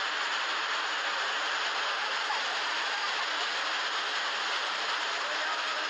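A lahar of muddy floodwater rushing in a fast torrent after heavy rain, a steady, unbroken rushing noise.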